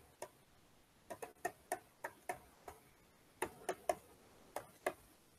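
Faint, irregular clicks of a stylus tip tapping on a tablet surface during handwriting, a few per second in short clusters.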